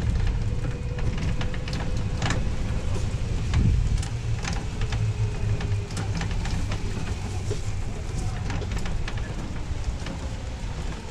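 Ride in an open resort buggy: a steady low rumble of motion and wind on the microphone, with scattered crackles and clicks.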